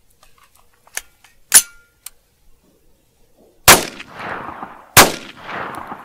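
CMMG Guard 9mm carbine firing two shots of 9mm +P about a second and a quarter apart, each trailing off in a long echo. A sharp click comes earlier, about a second and a half in.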